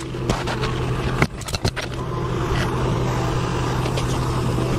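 Steady low machine hum, with a few sharp knocks and taps over it, the loudest about a second and a quarter in.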